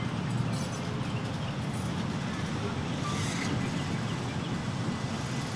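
Electric streetcar rolling away along the track, a steady low rumble.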